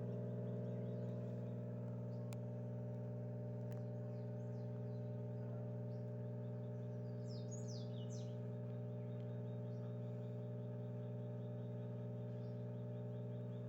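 Electrolux washing machine in its spin cycle, the drum spinning at a steady speed with an even motor hum. A few faint bird chirps come through about halfway in.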